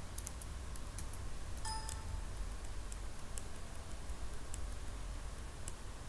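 Faint scattered clicks and ticks over a steady low hum, with a brief high tone about two seconds in.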